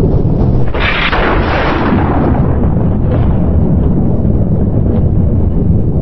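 Thunder: a sharp crack about a second in that rolls off over the next second or so into a loud, steady low rumble, with a few fainter crackles later.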